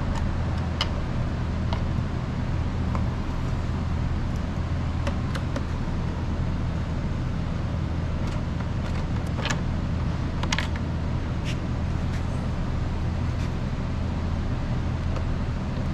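Steady low mechanical hum, with scattered light clicks and taps of a Torx driver and screws as plastic motorcycle body panels are unscrewed.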